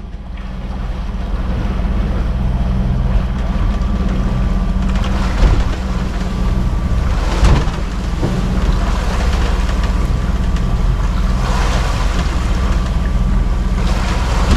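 Sailing yacht's engine running steadily while motoring into the swell, with surges of wind and rushing water against the hull several times.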